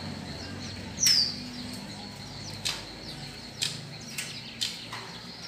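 Hand work with a screwdriver at a metal door frame's lower hinge. About a second in there is one sharp, high squeak that slides down in pitch. It is followed by a series of light metallic clicks and taps, about one every half second.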